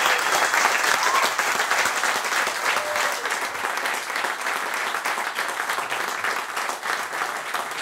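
Small crowd applauding, a dense patter of hand claps that slowly eases off.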